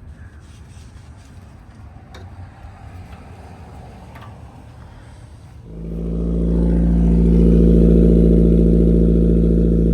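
A car engine cold-starting about six seconds in, then running at a loud, fast idle that swells and settles slightly; the speaker calls it a nasty cold start. Before that, only faint shop background with a few light clicks.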